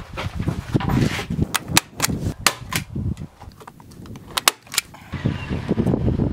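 About six sharp, short snaps in two clusters, one group roughly one and a half to two and a half seconds in and a tighter group just after four seconds, over low-pitched noise.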